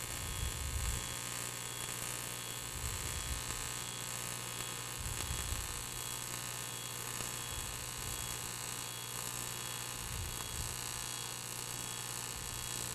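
AC TIG welding arc on aluminum, a steady electric buzz with a hiss over it, held at a constant current of about 120 amps.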